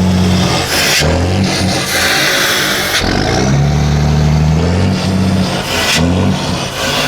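Engine running loud under acceleration, its low note climbing in pitch and then breaking off and starting lower again several times, like gear changes, with short bursts of hiss in between.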